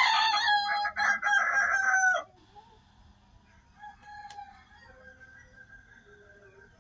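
Kukuak Balenggek rooster crowing: a long, loud crow broken into many short stepped syllables, ending about two seconds in. Fainter crowing follows in the background.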